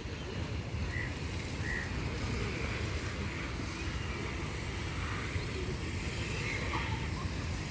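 Steady low outdoor rumble, with a few faint, short bird chirps scattered through it.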